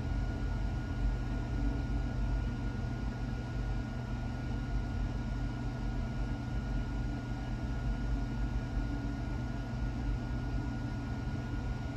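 Single-stack intermodal freight train's container cars rolling past: a steady low rumble of wheels on rail, with a faint steady high whine over it.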